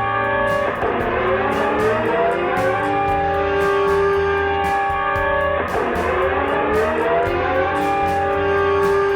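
Sustained, distorted multi-tone alert sound of a homemade EAS alert, holding a steady chord. Twice, about five seconds apart, it drops off and sweeps back up in pitch to the chord.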